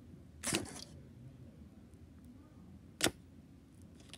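A failed clear slime being stretched and poked by fingers: a short wet, noisy burst about half a second in, then a single sharp click about three seconds in.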